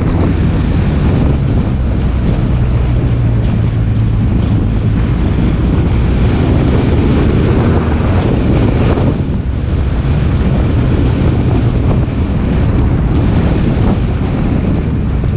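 Wind buffeting the microphone of a camera on a moving vehicle, with the vehicle's engine running steadily underneath.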